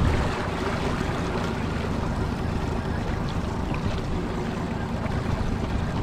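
Motorboat underway: the boat's motor runs steadily at trolling speed, with wind noise on the microphone.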